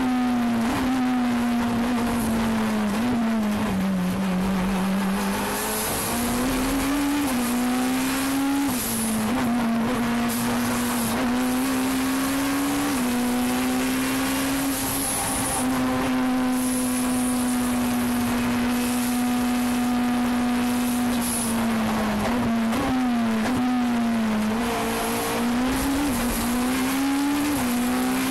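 Turbocharged Honda K22 four-cylinder engine of a time-attack Honda NSX at full race pace. The engine note falls under braking a few seconds in, climbs in steps through quick upshifts, holds steady for several seconds flat out, then drops and climbs again through the gears near the end.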